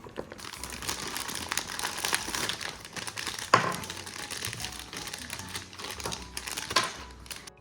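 Crinkly wrapping of a surprise ball being torn and unwrapped by hand: continuous crinkling, with a sharper snap about three and a half seconds in and another near the end.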